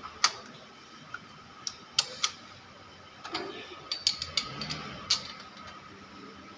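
Irregular sharp metallic clicks and ticks from a long wrench on the crankshaft bolt as an Audi A4 diesel engine is turned over by hand to check the new timing belt's marks. A faint steady high tone runs underneath.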